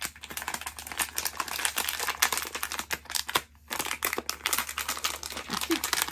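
Crinkling of a foil blind bag as it is worked open by hand, with a brief pause a little after halfway.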